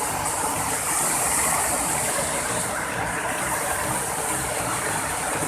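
Large waterfall rushing steadily: a constant hiss and rumble of falling water.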